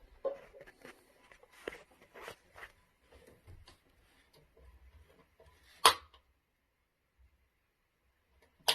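Faint handling noises, small taps and rustles, then a sharp click about six seconds in and another near the end, with near silence between them.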